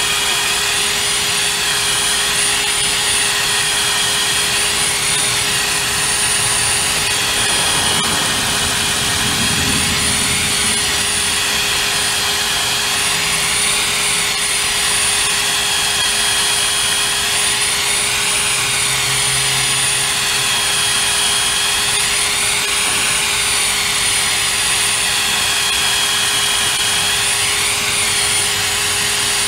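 Brushless cordless drill running continuously with a steady whine, spinning a wheel cylinder hone inside an oiled pintle hitch sleeve to scour rust out of the bore.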